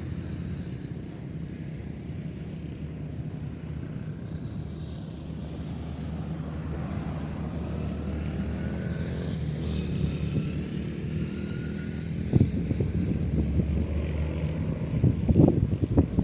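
A steady engine drone, with a few loud thumps near the end.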